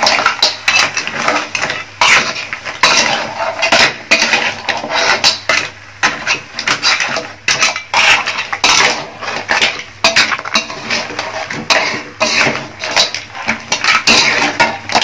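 Metal spatula scraping and knocking against a metal wok in a quick, irregular clatter while crab, green mussels and corn in a thick sauce are stirred.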